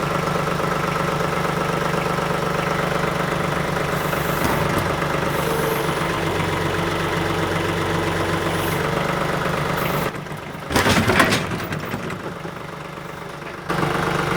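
TYM 2515H compact tractor's diesel engine running steadily while it works a heavy load on the forks, its note shifting a little about four seconds in. About ten seconds in the engine sound drops away, a brief loud noise follows, and the engine comes back near the end.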